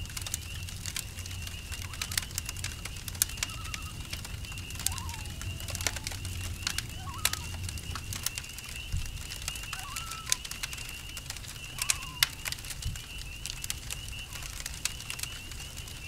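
Campfire crackling with frequent sharp pops over a low rumble, against a steady high-pitched cricket trill. A few short animal calls come in the middle of the stretch.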